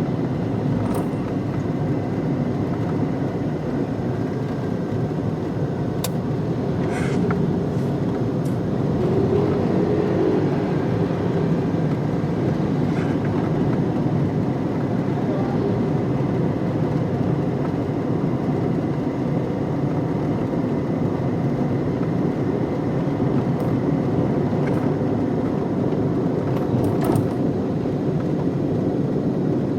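A car being driven: steady engine and road noise, with a few faint scattered clicks.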